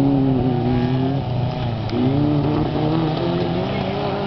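Racing car engines running hard at full race pace, the engine note dipping and then climbing again about two seconds in.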